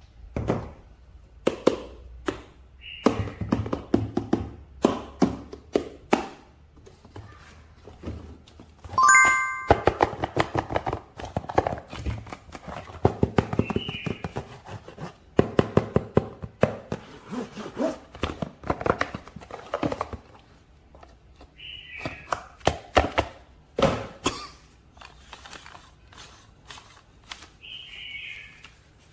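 Hands handling plastic toy packaging and action-figure parts: a string of clicks, knocks and crinkling rustles. A short chime sounds about nine seconds in.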